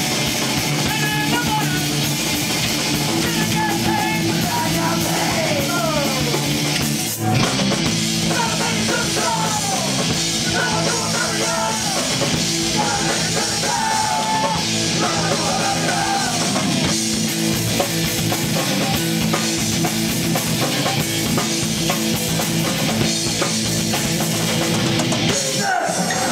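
Live rock band playing: electric guitars, bass guitar and drum kit with a vocalist singing into a microphone. The song stops at the very end.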